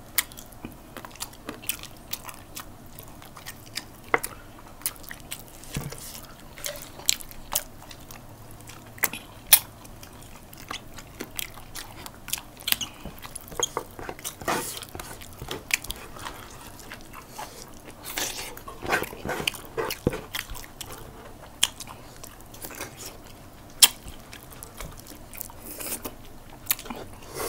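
Close-up eating sounds: people biting and chewing pieces of chicken adobo eaten by hand, with many short, sharp mouth smacks, clicks and crunches at irregular intervals.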